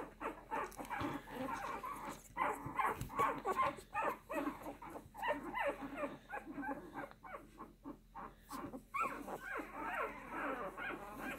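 Two-week-old bully-breed puppies whimpering and squealing: a steady stream of short, high, overlapping squeaks and whines.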